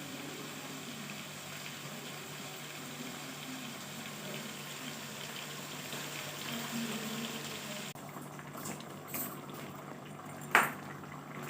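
Chicken cooking in a pan, with a steady sizzling, bubbling hiss. About eight seconds in the hiss drops away suddenly, then come a few light knocks and one loud sharp knock near the end.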